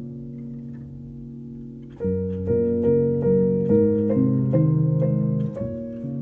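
Background music: a soft piano-like keyboard melody over held chords, growing louder about two seconds in with a run of notes about two a second.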